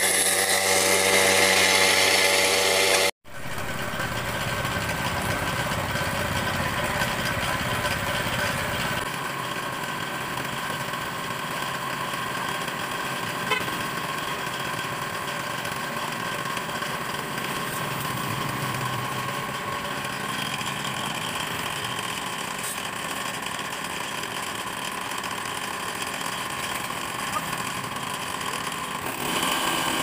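Walk-behind concrete saw: a small gasoline engine belt-driving a water-cooled blade, cutting into concrete for the first few seconds. After a sudden break about three seconds in, the saw's engine runs on steadily.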